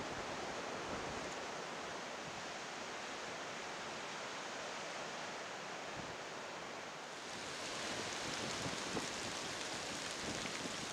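Steady wind and rain outdoors, an even hiss with no distinct events. About seven seconds in the sound changes and becomes higher and hissier.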